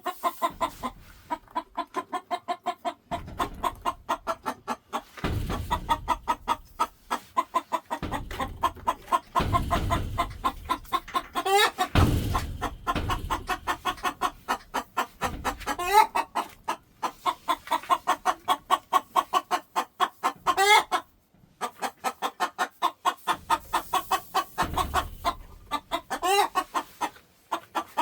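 Chickens clucking in a quick, unbroken run of short notes, several a second, with four sharp rising calls spread through it.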